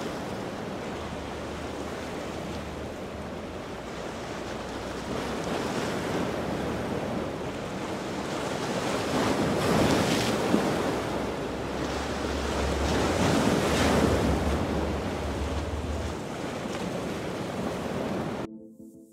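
Ocean waves breaking at an inlet, with wind buffeting the microphone. The surf swells louder twice, around ten and fourteen seconds in, then cuts off abruptly just before the end.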